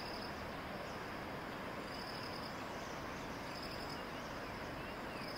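Insect, likely a cricket, chirping in short pulsed trills that repeat about every second and a half to two seconds. Under it runs a steady faint outdoor hiss.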